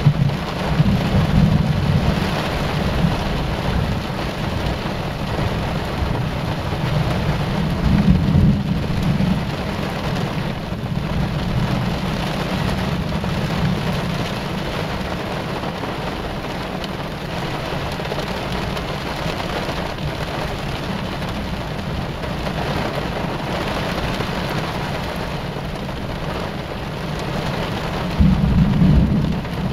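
Heavy rain falling steadily on a car, with rolling thunder rumbling louder about a second in, around eight seconds, and again near the end.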